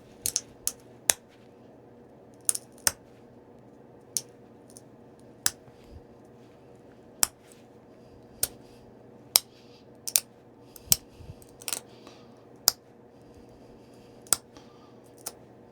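Flint knapping: sharp, irregular clicks as small flakes snap off a Tallahatta quartzite point being shaped into a stem, roughly one click a second with a few quick pairs.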